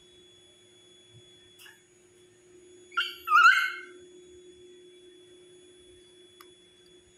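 Dachshund puppy giving a brief, high squeaky whine about three seconds in, in two short parts, the second bending down and back up in pitch.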